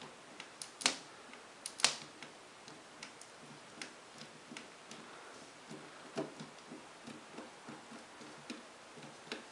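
Faint scattered clicks and ticks, two sharper ones about one and two seconds in: a small screwdriver driving a tiny screw into the metal mounting bracket on a laptop LCD panel.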